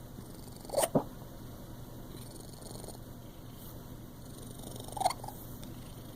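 Domestic cat hiccuping: two short, sharp hiccups, one about a second in and another about five seconds in, over a low steady purr.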